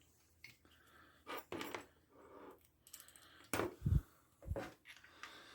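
Small handling clicks and rustles of wire leads and clips being connected, with a couple of louder knocks about three and a half to four seconds in.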